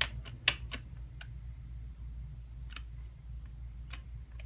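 Sharp clicks from a computer's input devices being worked in the BIOS: a quick run of about six in the first second, then single clicks a second or more apart, over a steady low hum.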